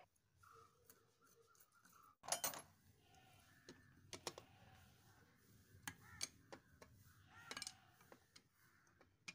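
Faint, scattered metallic clicks and clinks of a long screwdriver working the screws of a Honda Activa engine's magneto stator plate, the loudest a quick cluster about two seconds in.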